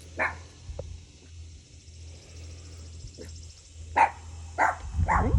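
A dog barking: one bark just after the start, then three barks about half a second apart near the end.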